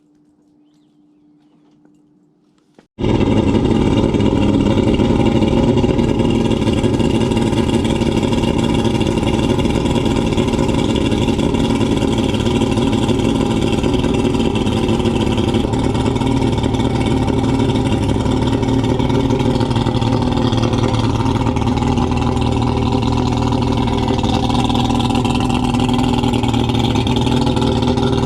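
Boat engine running steadily at an even pitch, cutting in abruptly about three seconds in after a near-quiet stretch.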